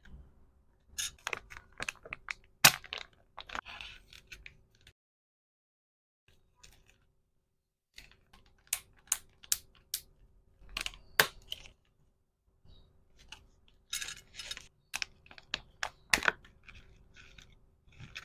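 Small items and packaging being handled: irregular sharp clicks and taps in clusters, with short rustles. The sounds stop for about three seconds near the middle.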